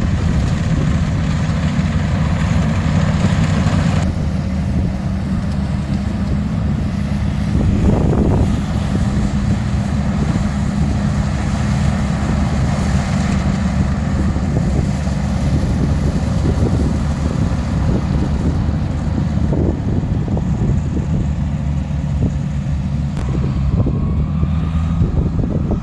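Tractor engine running steadily as it drives along, a low even hum.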